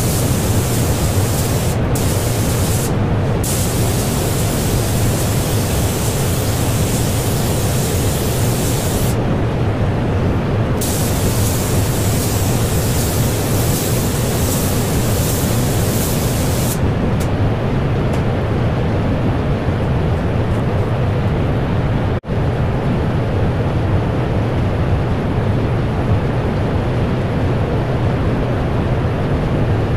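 Automotive paint spray gun hissing in long bursts as the trigger is pulled and released, with two short breaks early on and a longer pause before the spraying stops a little past halfway. Beneath it, the paint booth's ventilation fans run with a steady low rush.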